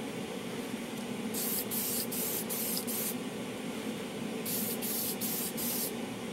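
Spray can of matte clear coat hissing in short bursts, a run of four quick passes about a second and a half in and another run about four and a half seconds in, dull-coating chrome-plated plastic model parts. A steady low hum runs underneath.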